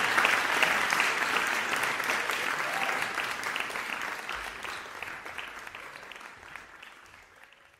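Audience applauding, a dense patter of many hands clapping that fades away steadily to nothing by the end.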